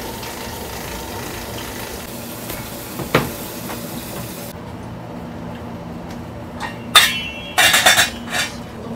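Stainless steel pot lid clanking against the pot several times near the end, with a ringing metallic tone. Before it there is a steady kitchen hiss with one short knock about three seconds in.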